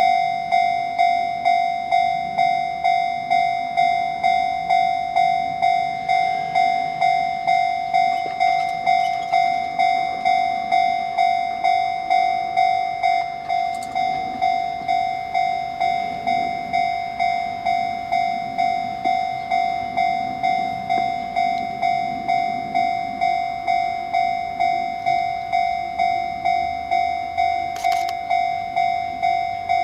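Electronic level-crossing warning bell clanging at an even beat of about one and a half strikes a second, starting abruptly: the crossing signal that a train is approaching. A couple of short sharp noises come near the end as the train draws near.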